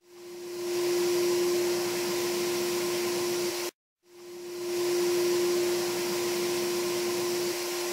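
HVLP turbine paint sprayer running: a steady motor hum with a rush of air. It cuts off abruptly a little under four seconds in, comes back a moment later and swells up to full over about half a second.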